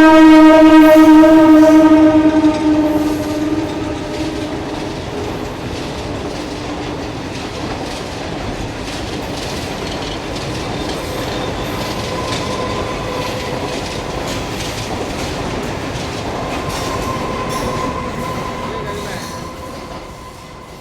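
Indian Railways MEMU electric multiple unit sounding a long horn blast, loudest in the first two seconds and fading out by about four seconds in. Then the accelerating train runs on with a steady rumble, wheels clicking over rail joints and a faint steady whine, growing quieter near the end.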